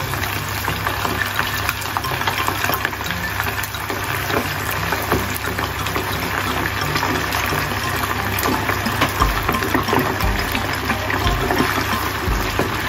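Flour-dusted chicken pieces deep-frying in hot olive oil in a saucepan: a steady, dense sizzle and crackle of bubbling oil. The flour coating keeps the oil from spattering much.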